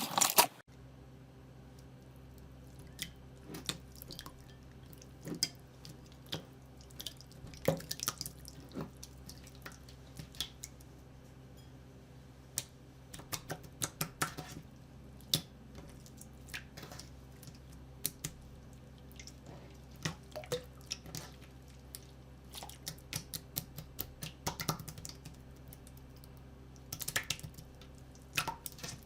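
Slime being pressed and played with by hand, making small wet pops and clicks at irregular intervals, over a faint steady low hum.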